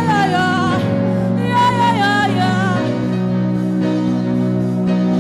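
Gospel worship music: a single voice sings short gliding phrases without clear words over sustained instrumental chords. The voice drops out about halfway through, leaving the chords holding.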